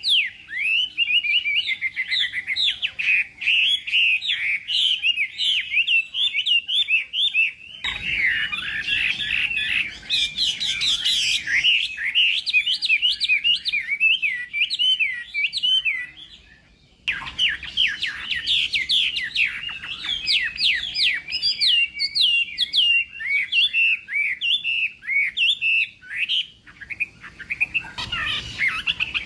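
Chinese hwamei singing a long, rapid run of varied whistled phrases, with a brief pause a little past the middle.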